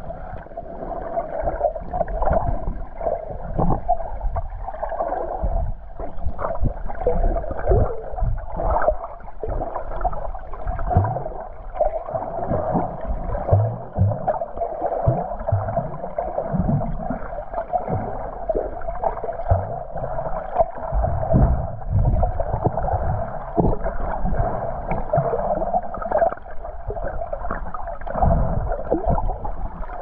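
Muffled underwater sound of shallow sea surge heard by a submerged camera: a steady hum under irregular low thumps, gurgles and rushes of moving water.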